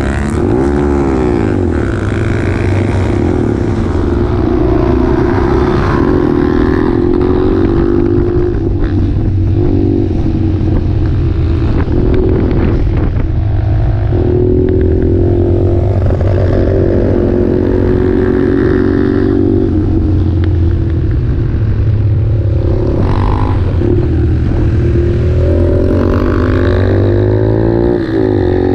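Motorcycle engine heard close up from an onboard camera, revving up and dropping back again and again as the rider shifts gears and brakes for corners.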